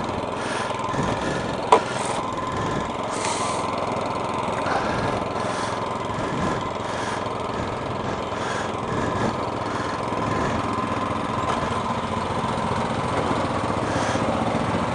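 Cub Cadet two-stage snowblower's small gasoline engine running steadily as the machine is driven forward, with one sharp click a little under two seconds in.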